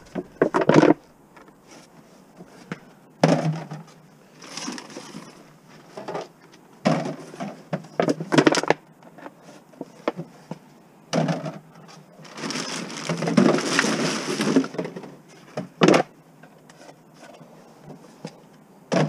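Plastic drink bottles and jugs in plastic bags crinkling and knocking as they are handled, in irregular bursts, with a longer stretch of rustling plastic about two-thirds of the way through.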